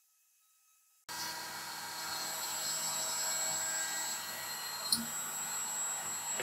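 A small electric motor running steadily with a high whine, cutting in abruptly about a second in after silence. A single short click about five seconds in.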